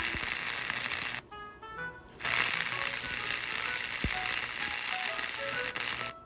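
Gasless flux-core semi-automatic welder arc crackling and sizzling in two runs: a short bead of about a second, a one-second pause, then a longer run of about four seconds. Background music plays under it.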